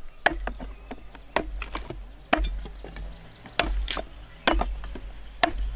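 Cleaver chopping cassava stems against a wooden log: about eight sharp chops at uneven intervals, as the stems are cut into short planting cuttings.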